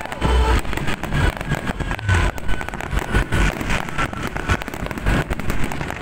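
Aerial fireworks display: a dense, irregular barrage of shell bursts, booms and crackling, one on top of another.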